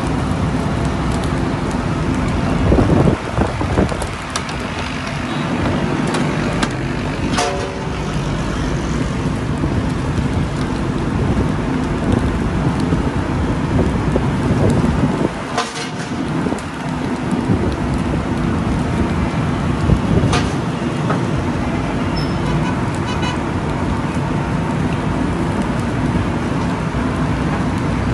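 Steady street traffic noise with a car horn, mixed with a few sharp clinks of metal kebab skewers being handled at a charcoal grill.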